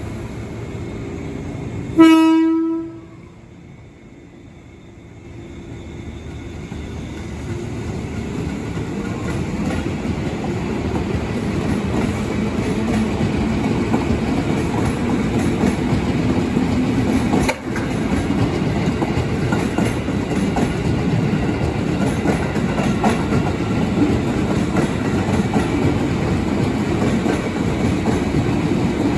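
A train horn sounds one short, loud blast, then a train draws in and runs past with a rumble and wheel clatter that builds over several seconds and holds steady.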